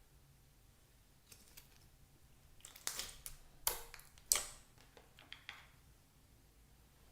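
Slime being handled: a cluster of sharp crackling clicks and pops starting about three seconds in, the loudest two close together near the middle, then fading out.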